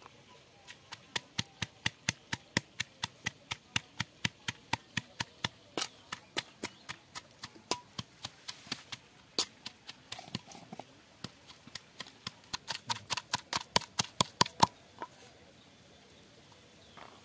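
Wooden pestle pounding red chillies in a stone mortar: a steady run of sharp knocks, about three strokes a second, that stops about fifteen seconds in.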